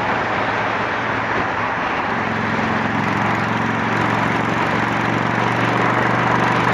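Honda Shadow 750's V-twin engine running at a steady cruise through an aftermarket Torbal 3-inch sport exhaust, with a constant rush of wind and road noise over it.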